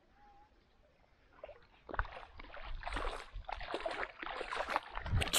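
Water splashing and sloshing in irregular bursts, starting about two seconds in and growing louder.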